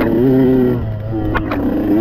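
Yamaha YZ125X two-stroke single-cylinder dirt bike engine under hard throttle, easing off briefly just under a second in and then revving up again. Two sharp knocks come about halfway through.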